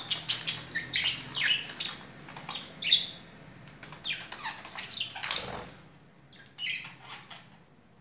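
Budgerigars chirping and chattering in many quick, short high calls that thin out over the last two seconds, with a brief flutter of wings about five seconds in.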